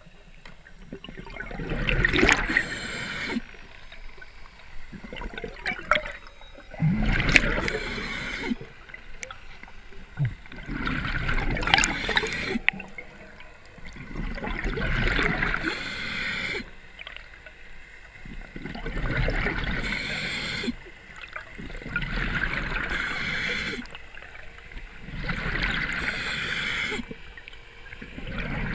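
A scuba diver's regulator breathing underwater: about seven breaths, one every four seconds or so, each a gurgling rush of exhaled bubbles with a short sharp hiss from the regulator, heard through an underwater camera housing.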